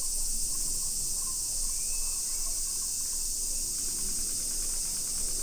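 Steady high-pitched drone of a summer cicada chorus, holding level throughout.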